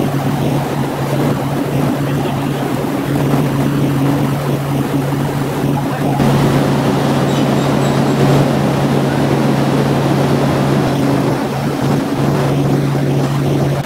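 A motor-driven sprayer hums steadily while its jet hisses onto a board surface. The spray noise grows louder about six seconds in, and the sound stops abruptly at the end.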